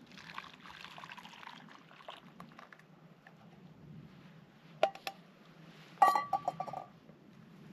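Soup poured from a cooking pot into a bowl, a splashing pour in the first couple of seconds. Then a few clinks of utensil or pot against the bowl, the loudest about six seconds in, ringing briefly.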